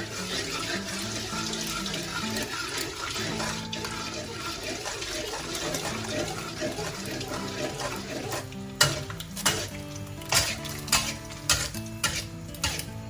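Eggs sizzling in hot oil in a wok as they soft-scramble, a steady hiss. From about two-thirds of the way in, a metal spatula clacks and scrapes against the wok several times.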